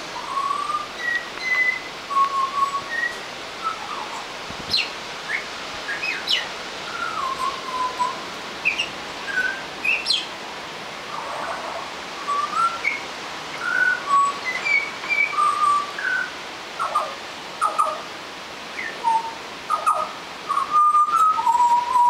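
Juvenile butcherbird practising its song: a string of short, varied whistled notes, some sliding up or down in pitch, separated by pauses, with a quicker run of notes near the end.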